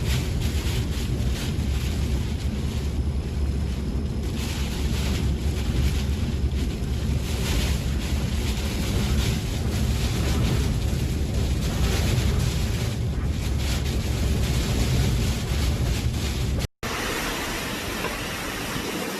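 Hurricane wind buffeting the microphone: a loud, constant low rumble with gusts. About seventeen seconds in it cuts abruptly to a steadier, higher hiss.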